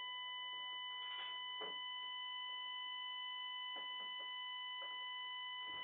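Store burglar alarm sounding one steady, unwavering electronic tone, fairly quiet, with a few faint knocks and rustles.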